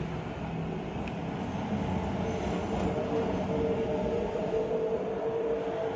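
Kemei 2600 cordless hair clipper running: a steady motor buzz, with a steady hum that comes in about two seconds in.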